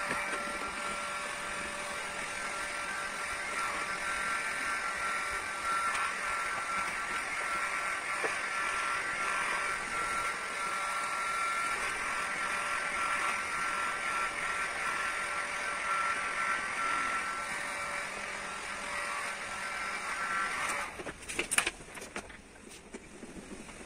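Handheld electric heat gun running steadily, its fan blowing with a faint whine while it heats carbon-fibre vinyl wrap film to mould it. It is switched off about 21 seconds in, and a few clicks and knocks follow.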